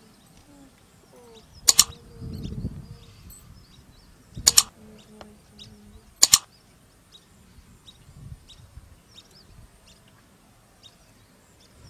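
Three sharp double clicks a couple of seconds apart, the loudest sounds here, with a brief low rustle after the first. Small bird chirps go on throughout.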